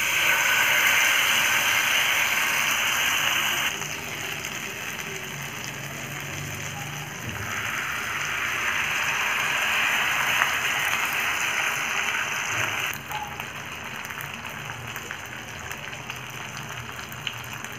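Tandoori-marinated chicken legs sizzling as they go into hot oil and butter in a frying pan. A loud burst of frying as the first leg goes in dies down after about four seconds, and a second surge comes when the other leg is added about seven seconds in. Both then settle to a quieter, steady sizzle.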